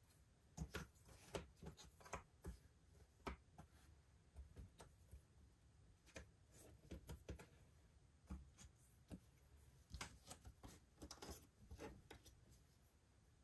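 Faint, irregular clicks and taps of cardboard jigsaw puzzle pieces being handled and set down, bunching together about ten seconds in.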